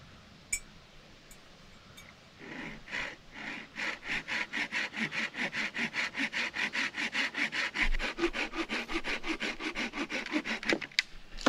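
Hand saw cutting through a branch in quick back-and-forth strokes, about five a second, starting a couple of seconds in and stopping near the end.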